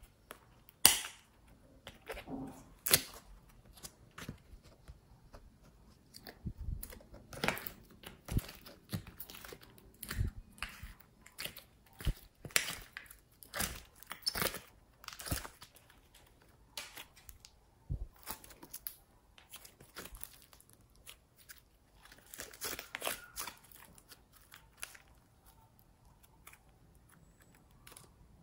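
Plastic case and slime handled by hand: irregular sharp clicks and crackles as the case is opened and the slime is pulled out of it, loudest about a second in and again near three seconds.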